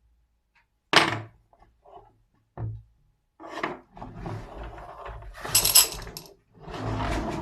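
Marbles on a HABA wooden marble run: a sharp knock about a second in and a few small clicks, then marbles rolling and rattling along the wooden track, with a brighter clatter a little past halfway.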